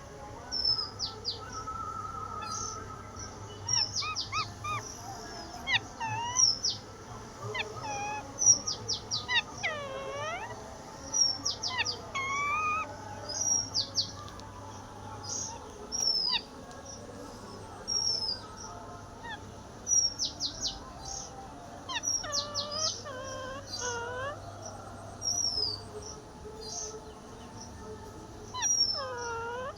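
Parrots calling: many short, high chirps and whistles, some sliding downward in pitch, mixed with lower curved calls that dip and rise, coming in clusters with short pauses between.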